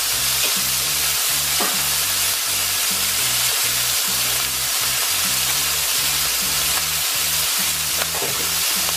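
Beef steak searing in oil in a stainless-steel frying pan: a steady, even sizzle.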